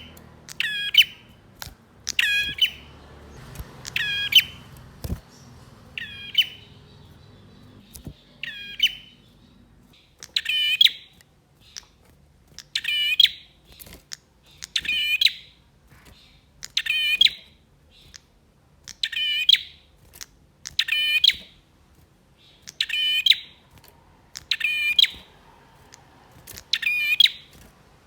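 Male prenjak (prinia) singing: a short, sharp, chattering call repeated about once every two seconds, each call loud and over in well under a second.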